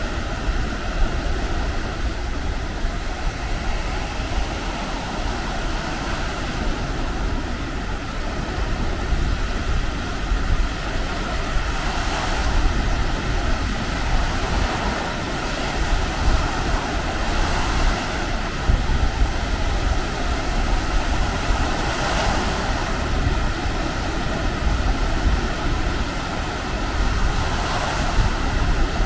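Baltic Sea surf washing onto a sandy beach, waves breaking every few seconds over a steady wash, with wind rumbling on the microphone.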